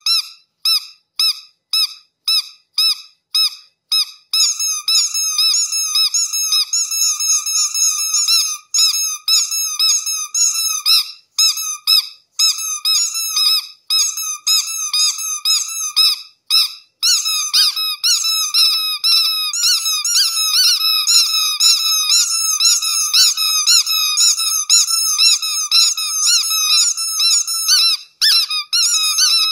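Rubber duck squeak toys squeezed over and over. For the first four seconds there are separate short squeaks, about three a second; then a near-continuous run of rapid squeaking follows, with a few brief pauses.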